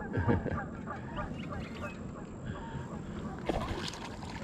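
Geese honking repeatedly in short calls, with a low thump near the start.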